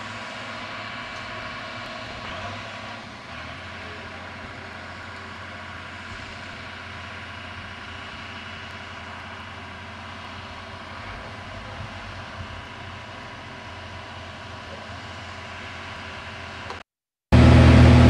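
Corn-harvest farm machinery running, a steady engine drone. Near the end the sound cuts out for a moment and comes back much louder.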